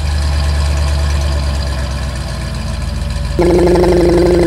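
Cartoon dump truck sound effects: a steady low engine rumble as the truck drives in, then, about three and a half seconds in, a loud steady whine starts as the dump bed tips up.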